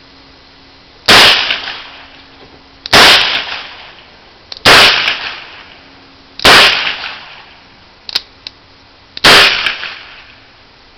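Five gunshots from a .32 H&R handgun, fired one at a time at uneven intervals of about two seconds, each sharp crack trailing off in a short echo.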